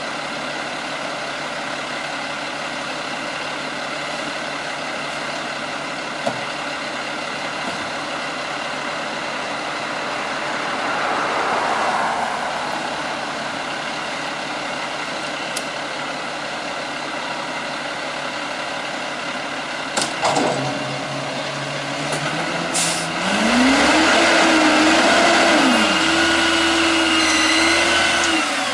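Peterbilt 320 garbage truck's diesel engine idling steadily, then two short sharp sounds about two-thirds of the way in. The engine then revs up and holds high, dipping briefly twice, as its hydraulics lift the Maxon front-loader bucket over the cab to dump.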